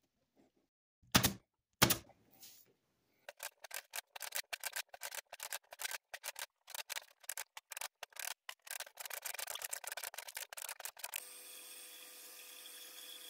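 Two sharp wooden knocks about a second in, then a quick, irregular run of light clicks as thin plywood staves are set down and glued onto a plywood ring. Near the end this gives way to a bandsaw running steadily.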